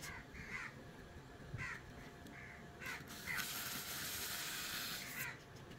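Crows cawing repeatedly, short falling calls about every half second to second. About three seconds in, a steady rasping mechanical noise from the plastic toy-car gearbox runs for nearly two seconds and is the loudest sound.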